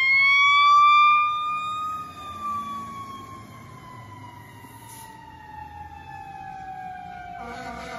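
Fire engine siren on Detroit Fire Department Engine 50, winding up in pitch for about two seconds and then slowly winding down while fading as the truck pulls away. A second, lower steady tone joins near the end.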